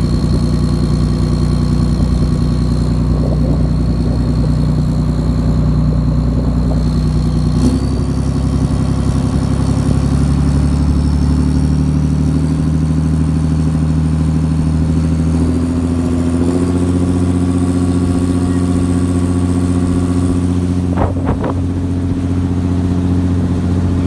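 Motor vehicle engine running steadily under load, its pitch stepping to new levels a few times, with a short rattle of clicks near the end.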